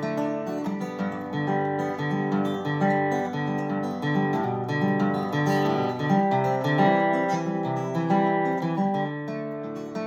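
Acoustic guitar strummed through changing chords in an instrumental break between sung verses, with no voice.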